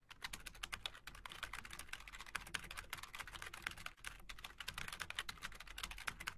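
Fast, uneven typing on a computer keyboard: a quick run of faint key clicks.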